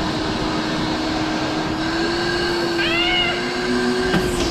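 A Ridgid wet/dry shop vac running as a blower: a steady motor whine over the rush of air from its hose. About three seconds in, a short high rising-and-falling vocal sound rises briefly above it.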